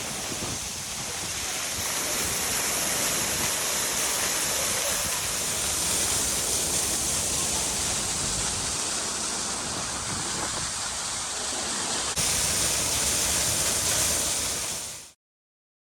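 Steady rushing water, dense and hissing, with an abrupt jump in level about twelve seconds in before it fades out quickly near the end.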